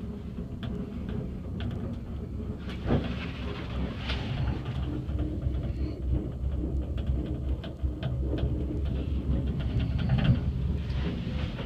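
Cable car gondola running along its haul rope, heard from inside the cabin: a steady low rumble with scattered rattles and knocks, and a couple of sharper knocks about three seconds in and near the end.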